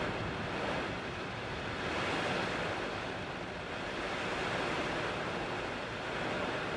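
Heavy downpour: a steady rushing hiss that surges slightly, with a low rumble underneath.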